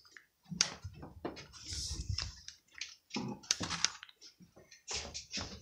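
Handling noise from a handheld camera being carried about: irregular clicks, knocks and rustles with a few low thumps.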